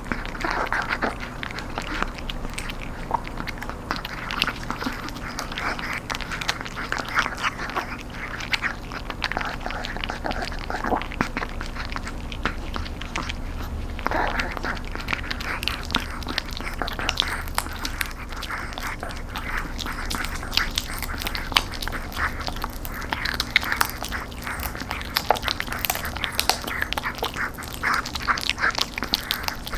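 A Chihuahua gnawing and crunching a crispy air-dried duck knee-joint treat, with a steady run of irregular crackling crunches.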